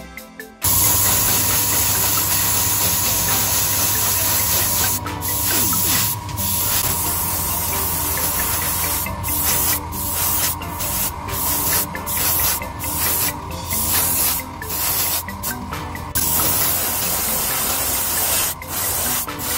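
Airbrush spraying paint onto a plastic model part, starting suddenly about half a second in; the loud hiss cuts out briefly again and again as the trigger is let off and pressed, over the steady hum of a spray booth's extraction fan.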